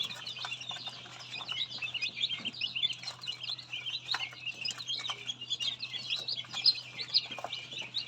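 Newly hatched duckling and chicks peeping, a dense run of rapid high-pitched chirps, over a steady low hum from the egg incubator.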